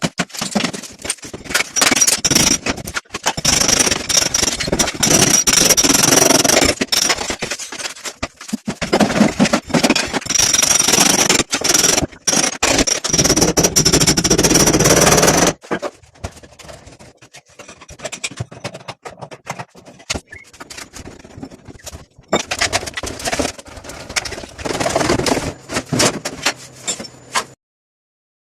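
Loud, rough scraping with a steady high whine behind it for about fifteen seconds, stopping suddenly; after that, quieter scraping and knocking that comes and goes.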